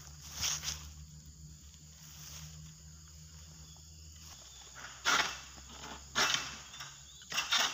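Footsteps crunching through grass and dry palm litter, about one step a second in the second half, over a faint steady outdoor background.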